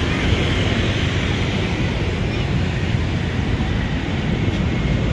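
Steady rushing noise of water pouring out of a drain outlet into the river, with wind buffeting the microphone.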